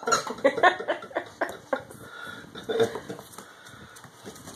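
Puppy playing with a plush toy on a vinyl floor: a quick run of clicks and taps from claws and toy over the first two seconds, with a few short puppy growls, then quieter.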